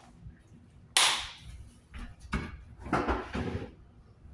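Kitchen handling noises: a sharp knock about a second in, then several softer knocks and rustles.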